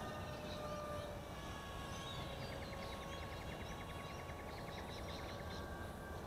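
Thin, faint whine of a distant electric-powered foam FPV model plane flying a pass overhead. Scattered bird chirps are heard, and a fine rapid ticking runs through the middle.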